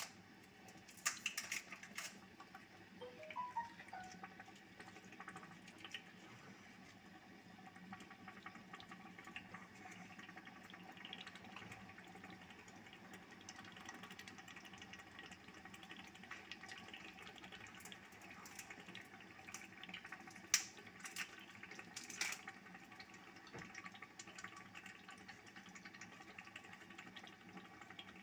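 Pot of tomato stew simmering, with faint bubbling and crackling from the sauce. A few sharp clicks stand out, near the start and again about three quarters of the way through.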